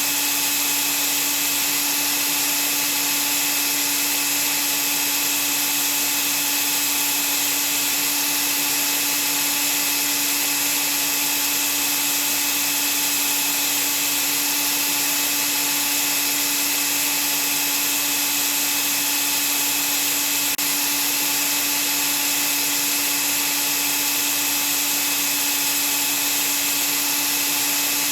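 Vacuum cleaner running steadily, a constant whooshing motor noise with a fixed hum and bright hiss and no change in pitch or level.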